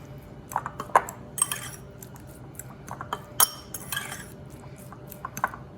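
A utensil clinking and scraping against a bowl in irregular knocks as cooked jasmine rice is stirred together with dressing, with two sharper clinks about a second in and again about three and a half seconds in.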